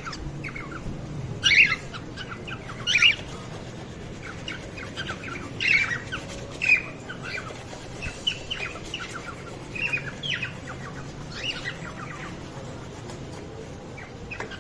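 Several cockatiels chirping and squawking, short calls overlapping throughout, with a few louder calls standing out about one and a half, three, six and seven seconds in.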